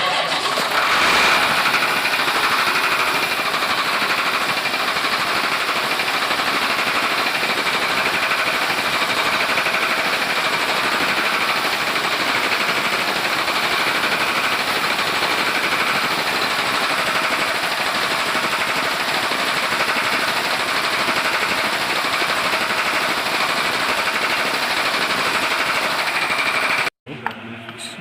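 Mitsubishi 6D15 six-cylinder diesel engine running steadily with a rapid, dense clatter: the knocking from the cylinder head that calls for a top overhaul. It cuts off abruptly near the end.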